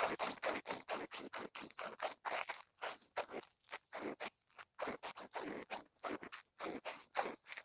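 Shoe soles scuffing and scraping on asphalt during quick shuffling dance steps: short, irregular scrapes, several a second.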